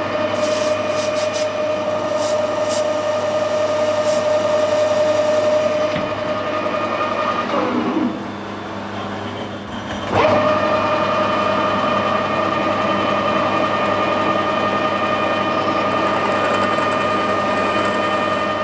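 Metal lathe running with a steady gear whine, turning a bronze workpiece. It winds down and stops about seven and a half seconds in, then starts up again about ten seconds in and runs until the end.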